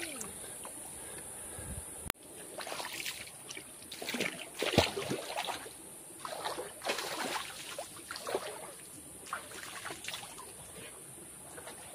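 Water splashing irregularly as a man scoops stream water over his head and body while standing in a shallow river, with a loud splash about five seconds in.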